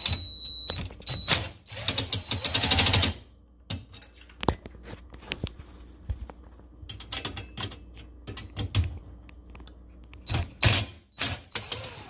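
Cordless power driver backing a dishwasher mounting screw out of a metal strip: a brief high whine at the start, then about a second of dense rapid clicking. Scattered sharp clicks and knocks of the bit and screw follow, with another short burst of the driver near the end.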